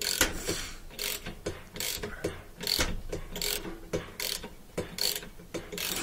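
Ratchet wrench with a 17 mm socket clicking in repeated back-and-forth strokes, about two clicks a second, as it turns the rotor bolt off a washing machine's direct-drive motor.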